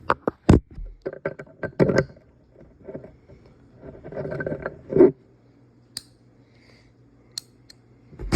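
Small steel ratchet internals being handled and fitted into a ratchet head: a run of light metallic clicks, then a stretch of scraping ending in a sharper knock about five seconds in, with a few faint ticks after.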